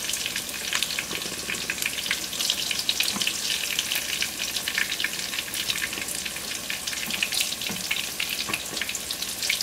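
Hot oil sizzling with dense fine crackling around meat-stuffed tofu pieces frying in a wok, the tofu crisp and the pork filling cooked through.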